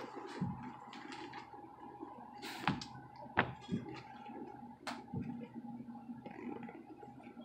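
Rummaging through a fabric backpack: rustling with several sharp knocks and clicks, the loudest about two and a half and three and a half seconds in, over a faint steady hum.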